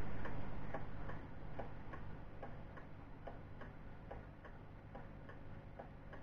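Wooden pendulum shelf clock ticking steadily, about two and a half ticks a second. The ticks are picked up by an action camera's built-in microphone and sit over a steady low hum, and they grow quieter over the first couple of seconds.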